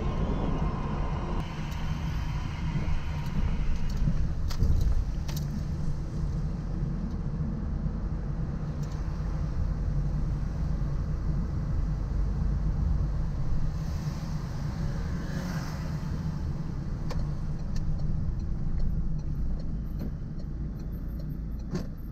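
Car driving on wet city streets: a steady low engine and road rumble with a light hiss from the tyres, and a few small clicks and rattles now and then.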